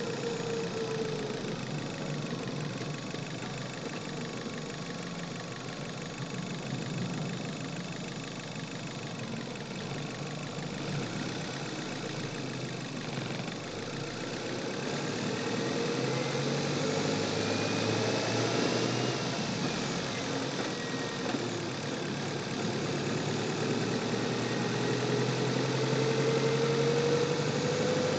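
Chevrolet car engine running under way, recorded in the engine bay; its pitch drops about a second in, climbs and falls again in the middle, and rises steadily over the last several seconds as it is revved up.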